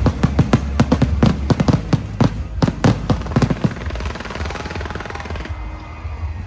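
Fireworks bursting in rapid succession, dozens of sharp bangs and crackles packed into the first three to four seconds, then thinning out. A steady low bass line from music runs underneath.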